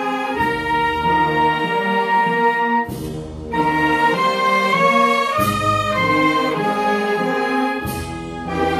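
Wind band playing a funeral march: held brass chords over low brass, with short breaks between phrases about three and five and a half seconds in.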